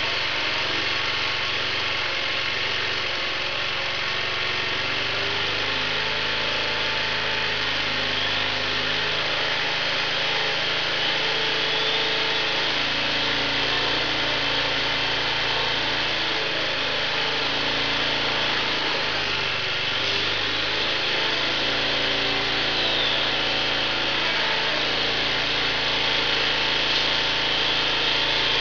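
Small 750-watt portable generator's engine running steadily on wood gas, purring below its full RPM. Its speed shifts up and down in small steps as the gas and air ball valves are adjusted, and it picks up a little toward the end.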